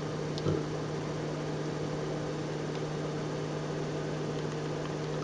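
Steady electrical hum with a low tone and a few fainter higher tones above it, with one brief soft click about half a second in.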